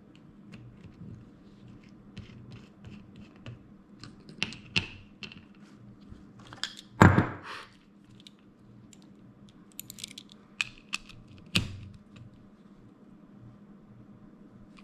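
Scattered light clicks and taps from metal parts of a Penn 430SS spinning reel being handled and a nut being tightened during reassembly, with a louder knock about seven seconds in and another about eleven and a half seconds in.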